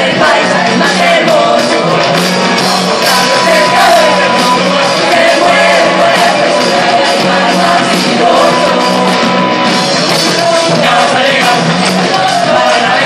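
Live gaita music played by a large group: a chorus of voices singing over drums and percussion, loud and dense.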